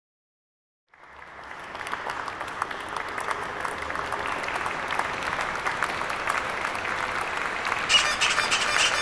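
Audience applause fading in about a second in, many hands clapping steadily, with a louder moment near the end.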